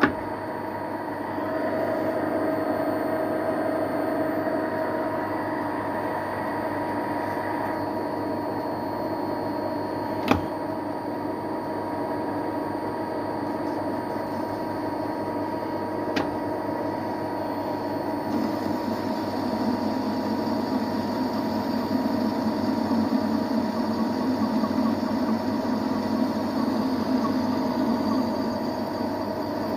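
Metal lathe running steadily with its power crossfeed engaged, the parting tool cutting off a turned part. A sharp click about ten seconds in, and the cutting sound grows rougher about two-thirds of the way through.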